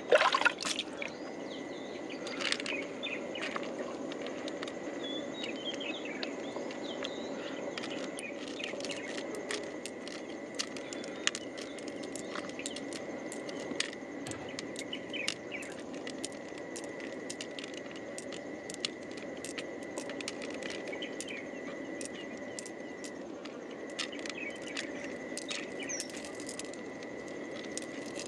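Fingers working pearls out of a freshwater mussel's soft flesh: many small wet clicks and squelches, with pearls clicking against each other in a palm. Behind them a steady wash of running water, a constant high thin tone and a few bird chirps.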